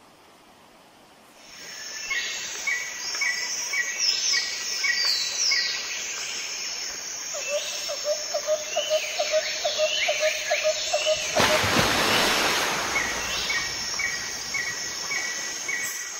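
Outdoor wildlife sound by a flowing stream: birds chirping in quick repeated notes and falling calls over a steady high insect buzz and a soft hiss of running water. It rises about a second and a half in. Midway a low call repeats about three times a second for a few seconds, and a little past halfway a loud rush of noise lasts about a second and a half.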